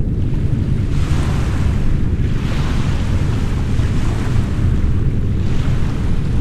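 Ocean surf washing in and drawing back in slow swells, about three in these seconds, over a continuous deep background noise used for tinnitus masking.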